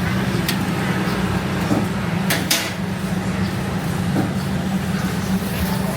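Steady low hum of street traffic and engines, with a few short sharp clatters about two and a half seconds in.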